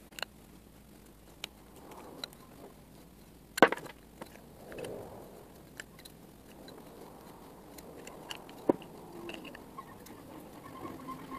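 Scattered small clicks and light knocks of a folding Allen-key set and a wooden bar being handled as threaded inserts are screwed into the wood, over faint rustling. The sharpest click comes about three and a half seconds in, another near nine seconds.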